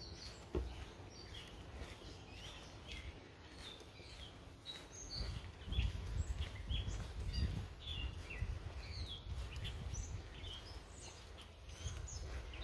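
Small songbirds chirping and calling all around, many short high notes overlapping, over a low rumble that grows louder from about five seconds in. One short knock about half a second in.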